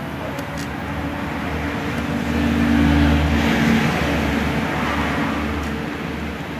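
A motor vehicle passing by, its engine and tyre noise swelling to a peak about halfway through and fading again, over a steady low hum.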